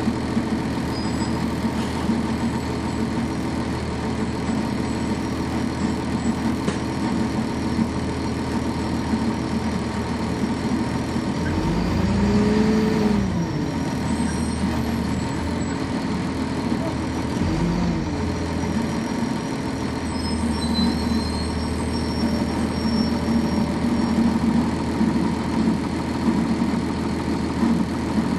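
Cummins ISC straight-six diesel of a 1999 NovaBus RTS transit bus, heard from on board, running with a steady drone. Twice, about twelve and eighteen seconds in, the engine note briefly swells up and back down.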